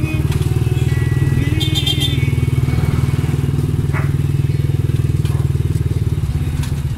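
Motorcycle engine running steadily with a fast, even pulse, heard from aboard the moving vehicle.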